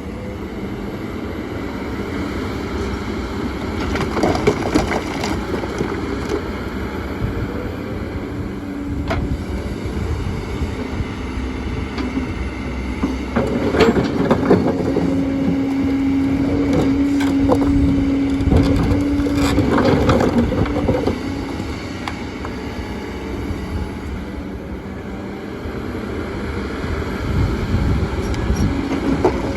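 Kobelco excavator working: the diesel engine and hydraulics run continuously under load, with a steady held note for several seconds in the middle. Stones knock and clatter against the bucket and each other several times.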